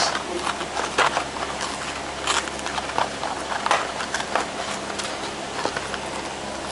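Cardboard toy-car box handled and torn open by hand: irregular scrapes, taps and tearing of thin card, with a few sharper clicks.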